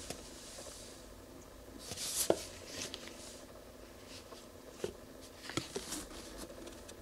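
Hands handling and turning a plastic (HDPE) motor oil bottle: scattered light clicks and knocks with fingers rubbing on the plastic. The sharpest knock comes about two seconds in, after a short rustle, and a few more clicks come near the end.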